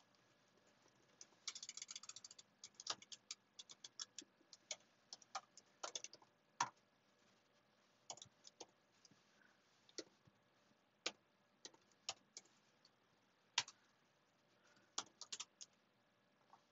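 Computer keyboard typing in quiet, sparse key clicks: a quick run of keystrokes about a second in, then single keys pressed every half second to a second, with short pauses between.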